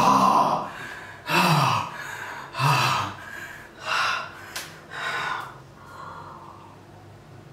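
A man gasping and exhaling hard, about five breathy gasps a little over a second apart, a couple of them with a falling groan, as he forces down gulps of salt water.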